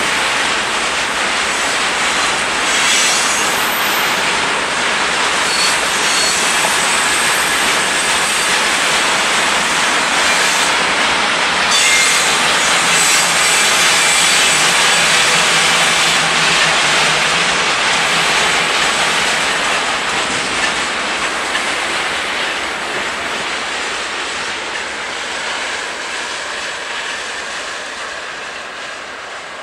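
Freight train of railway tank cars rolling past at close range, the wheels running over the rails with a steady noise and now and then a faint high squeal. The sound fades over the last third as the end of the train draws away.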